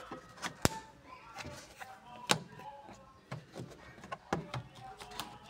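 Plastic interior trim of a Honda Civic being handled and unclipped during headliner removal: a string of sharp clicks and knocks, with two louder snaps about half a second and two seconds in.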